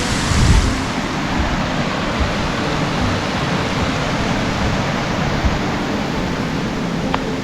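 Steady rushing of a small waterfall, with a gust of wind buffeting the microphone about half a second in.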